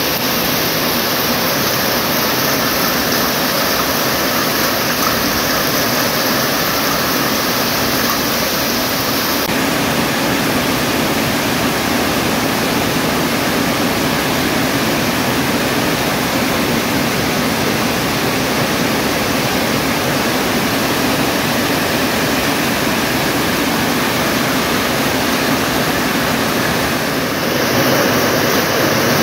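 Heavy rain pouring down, a dense steady hiss that gets a little louder in the last couple of seconds.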